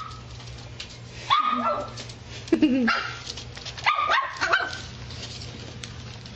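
West Highland White Terrier puppy giving several short, high-pitched yipping barks between about one and five seconds in, some dropping in pitch at the end.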